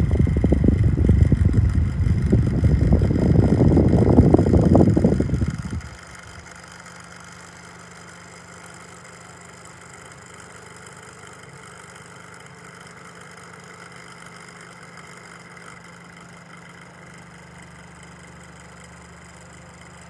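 Rechargeable oscillating fan blowing air across the microphone: a loud, uneven rumble that cuts off sharply about six seconds in, leaving a steady, quiet hum.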